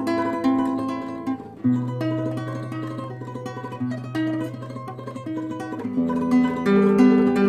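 Nylon-string classical guitar played fingerstyle: quick plucked notes over held bass notes, the bass and chord changing about a second and a half in and again near six seconds. It is softer in the middle and grows louder again near the end.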